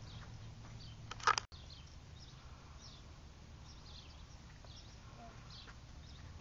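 Faint outdoor background: a steady low hum with scattered faint high chirps. A short, sharp clatter comes just over a second in, followed by a brief gap in the sound.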